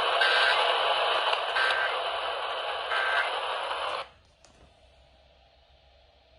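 Hissy, static-laden radio audio carrying three short data bursts about a second and a third apart, the pattern of an Emergency Alert System end-of-message code. The audio cuts off abruptly about four seconds in, leaving only a faint hum.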